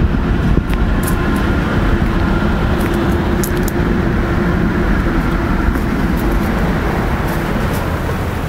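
Steady low rumbling noise with a faint hum running through it, and a few light ticks.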